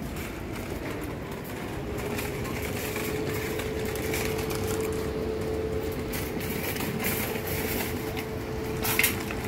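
Steady rolling rumble with a faint held tone through the middle, then a short sharp metallic clatter about nine seconds in, as a shopping cart is handled in a chained row of metal carts.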